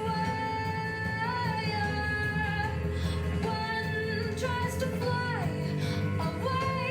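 A song with a high female-sounding voice holding long notes that slide between pitches over a steady backing.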